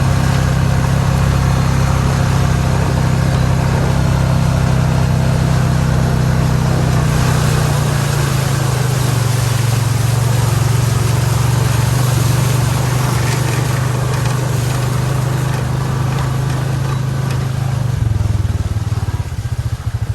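A vehicle engine running steadily, its pitch dropping a little about eight seconds in, then settling to a slower, pulsing idle near the end.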